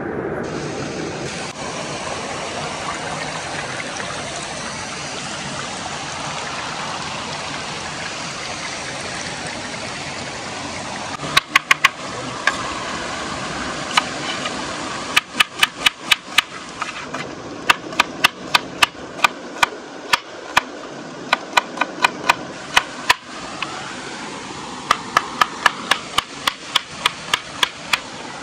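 Large kitchen knife slicing a red onion on a wooden cutting board: quick runs of sharp taps, several a second, starting about eleven seconds in and coming in short runs with pauses. Under it runs the steady rush of a stream and small waterfall.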